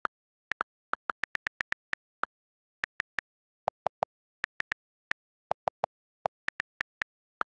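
iPad on-screen keyboard key clicks as a message is typed: irregular quick runs of short, crisp ticks with silence between, a few of them lower in pitch than the rest.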